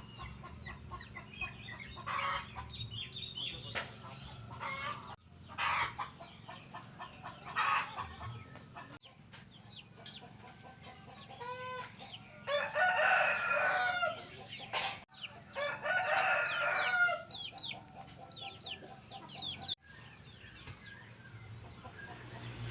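Rooster crowing, two long crows in the middle, with chickens clucking and small birds chirping throughout.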